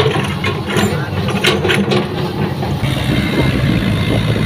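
Heavy diesel engine running steadily under load, with scattered sharp metal knocks and clanks in the first two seconds.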